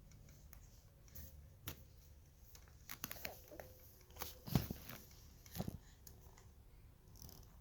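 Quiet room with a few scattered short clicks and brief soft sounds, the loudest about four and a half seconds in.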